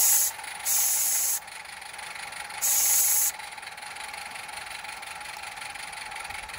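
Steam whistle on a Roundhouse Katie live-steam locomotive given three short presses, each a rush of steam hiss under a second long with no clear whistle note: the owner suspects a blockage still in the whistle. A softer steady hiss carries on between the presses.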